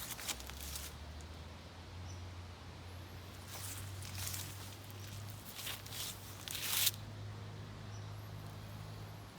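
Intermittent rustling and handling noises, a few brief scuffing bursts, over a faint low steady hum.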